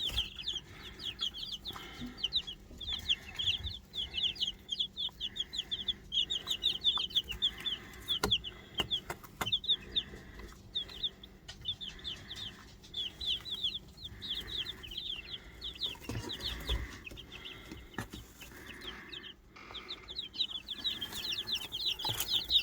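A brood of five-day-old chicks peeping, many quick high cheeps overlapping almost without a break, easing for a moment near the end. A few soft knocks sound among them.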